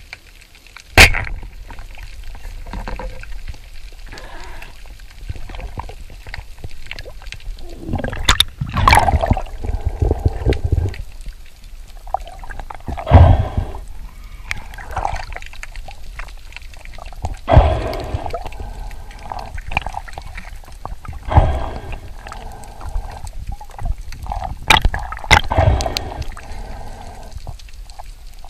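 Underwater water noise on a swimmer's action camera: a low steady rush with sloshing, gurgling surges every few seconds as the spearfisher moves.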